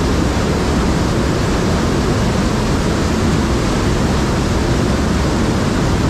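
White water of the Seti River rushing through a narrow rock gorge: a loud, steady churning noise with no breaks.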